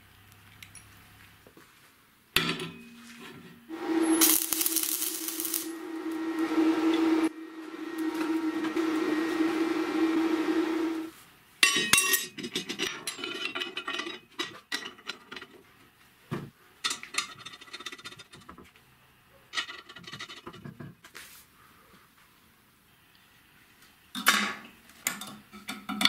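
A small power tool runs steadily for about seven seconds. Then steel parts clink and knock as a bottle jack, bars and bolts are handled and fitted into a welded steel frame.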